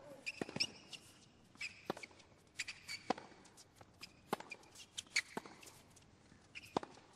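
Tennis rally on a hard court: sharp pops of racket strikes and ball bounces about a second apart, with players' shoes squeaking on the court surface between them.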